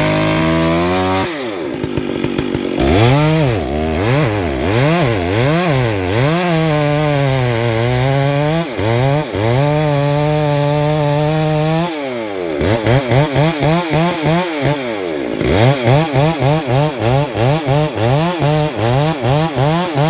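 Two-stroke chainsaw cutting into the trunk of a fire-weakened tree, its engine speed rising and falling again and again, with stretches held steady in the cut. In the second half the revs pulse quickly, about twice a second.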